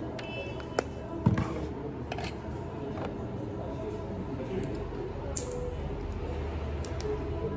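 Lens solution poured from a plastic squeeze bottle into a contact lens case, then a knock about a second in as the bottle is set down. After that come small clicks and scrapes as the tear-off metal seal on a glass contact lens vial is pried up and opened.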